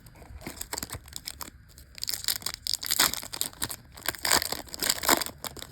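Foil booster-pack wrapper crinkling and being torn open: a few faint crackles, then about two seconds in a dense run of loud crinkling and tearing that lasts until near the end.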